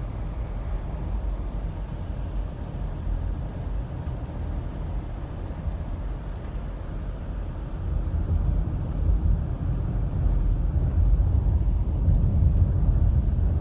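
Car driving, heard from inside the cabin: a steady low rumble of engine and road noise that grows louder past the middle.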